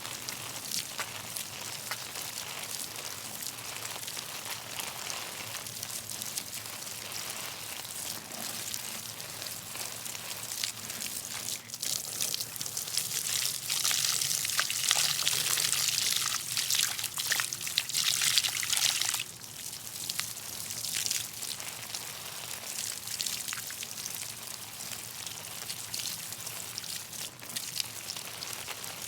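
Garden hose watering potted plants: a steady stream of water splashing and trickling into the pots, louder and brighter for several seconds in the middle before easing back.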